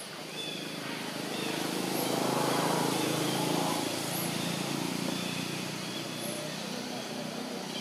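A motor vehicle's engine passing: a low hum that swells to a peak about two to three seconds in and then fades, over faint outdoor background noise.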